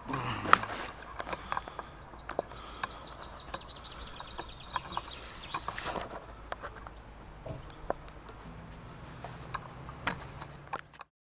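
Outdoor background with scattered clicks and knocks, and a bird's thin ticking trill from about two to five seconds in. A faint low hum joins near the end.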